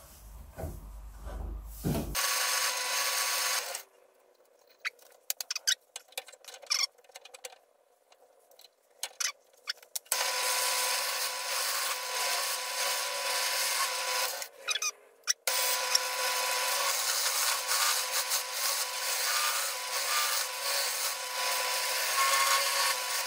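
A tool rubbing and scraping against a hardwood bowl spinning on a woodturning lathe. It comes in spells: briefly about two seconds in, then scattered short touches, then steadily from about ten seconds on with one short break.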